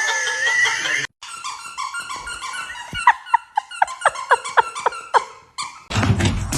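A dog giving a quick run of about ten short, high yips or whines, each falling in pitch.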